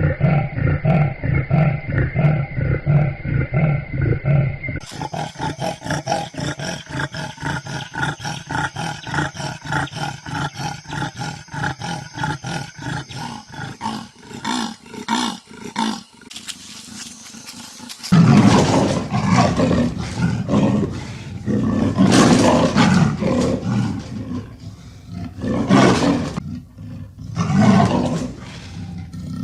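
Leopard calling: a long run of rapid, rhythmic rasping grunts, followed after a short lull by louder rasping calls spaced a few seconds apart. The sound changes abruptly twice, as from recordings joined together.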